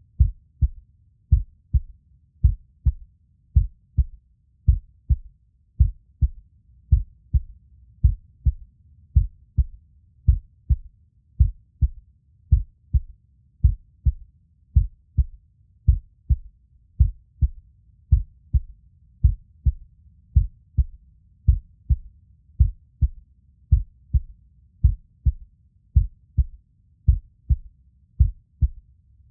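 Human heartbeat: a steady, even rhythm of low, dull thumps that goes on without change.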